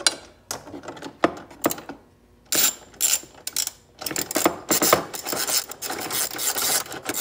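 Ratcheting clicks of a tool tightening fasteners: a few separate clicks, a short pause, then a long run of rapid clicking about halfway through.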